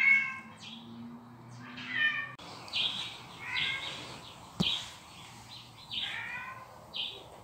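Domestic cat meowing again and again: four drawn-out meows with short, high calls between them. A sharp tap comes about four and a half seconds in.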